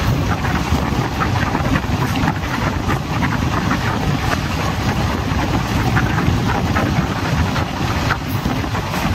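Passenger train of old ICF coaches running at speed, close to 100 km/h: a steady rumble of wheels on rail, with light rattles and clicks throughout.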